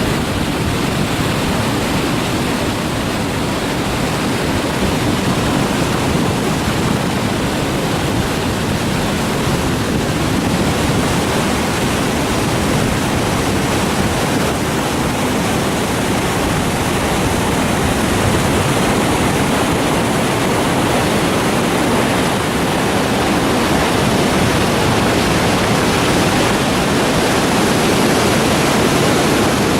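Loud, steady rush of a river in flood, white water pouring through rapids.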